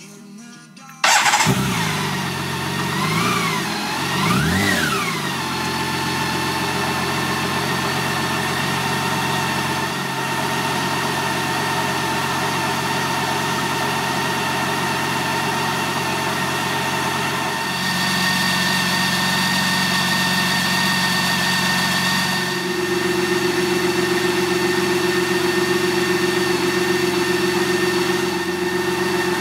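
BMW K 1600 B's inline six-cylinder engine starting about a second in, blipped twice with the throttle, then settling into a steady idle whose tone shifts slightly twice later on.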